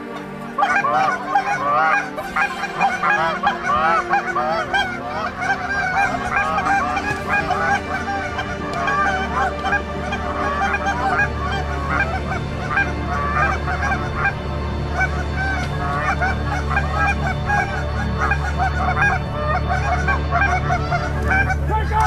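A large flock of geese honking, many calls overlapping without a break. A steady low hum joins about nine seconds in.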